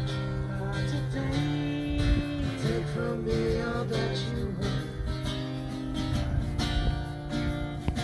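Live acoustic band music: a strummed acoustic guitar and a mandolin playing together, with voices singing over them.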